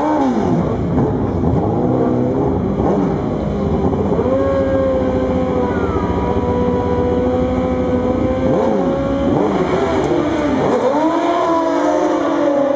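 Two sport motorcycles' engines revving in short rising and falling blips, then held at a steady high pitch for several seconds. About ten seconds in, the revs dip and climb again as the bikes launch and accelerate away down the drag strip.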